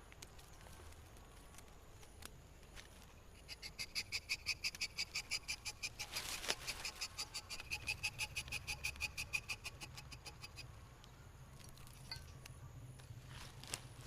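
An animal's call: a fast, even run of high chirps, about six or seven a second. It starts a few seconds in and stops after about seven seconds.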